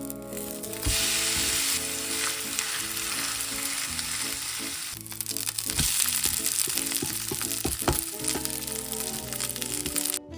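Okonomiyaki frying in a hot pan: a steady sizzle that gets louder about a second in, with a few sharp knocks in the second half, under background music.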